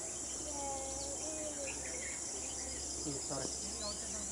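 Steady, high-pitched chorus of insects, with faint distant voices underneath.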